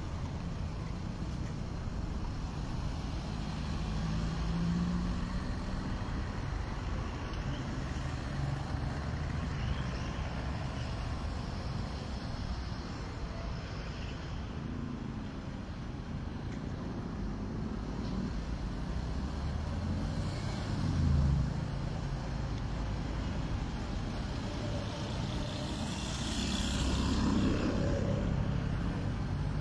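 Road traffic: cars and trucks driving past over a steady street rumble, engine hums rising and fading one after another, with a louder vehicle passing near the end.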